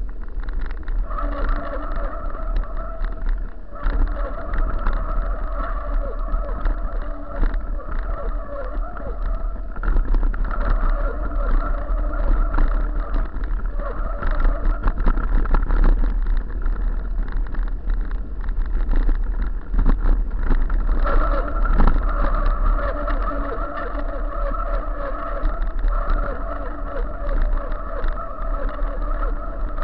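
Mountain bike brakes squealing with a steady high tone that comes and goes while braking downhill, over the rattle of the bike on paving stones and rough trail. Heavy wind rumble on the microphone.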